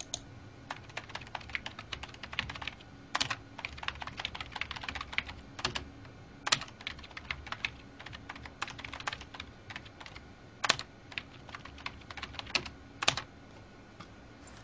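Typing on a computer keyboard: a quick, irregular run of key clicks with a few louder keystrokes standing out.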